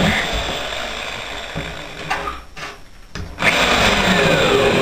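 Electric drill boring screw holes into a melamine-faced board: it runs for about two seconds, winds down and stops, then starts again about three and a half seconds in on the next hole.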